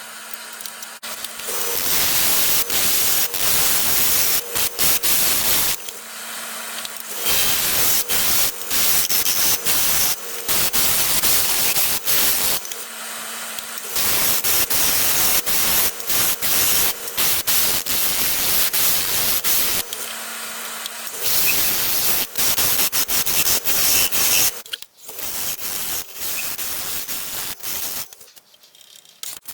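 Wood lathe turning a maple blank, a tool held against the spinning wood giving long stretches of loud, rough scraping hiss. Between the stretches only the lathe's steady motor hum is heard.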